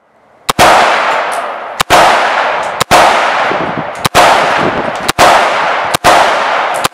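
AR-15-style rifle firing slow, deliberate single shots, about one a second. Each shot has a long echoing tail that dies away before the next.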